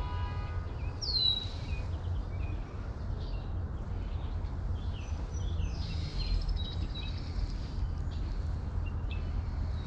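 Outdoor ambience: a steady low rumble of wind on the microphone, with songbirds chirping and calling on and off; a clear falling whistle about a second in is the loudest call.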